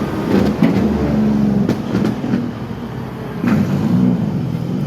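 Heavy vehicle's engine running, with a few sharp knocks or clanks.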